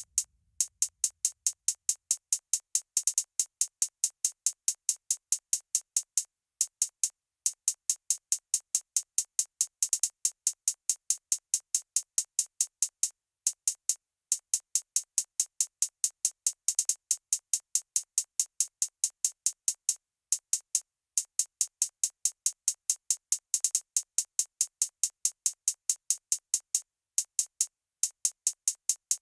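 Drum-machine beat from a home-made trap track: only rapid, high ticks at a steady pace, with brief breaks every several seconds and no bass underneath.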